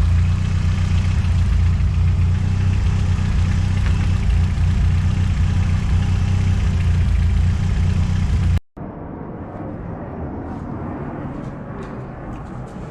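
Car engine idling with a steady low drone, which cuts off abruptly about eight and a half seconds in. Quieter outdoor background noise with a few faint ticks follows.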